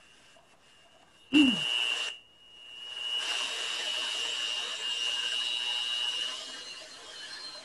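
Electric hand mixer whirring, its beaters whipping a batter in a glass bowl. It starts suddenly a little over a second in, stops briefly, then runs steadily with a high whine and eases off near the end.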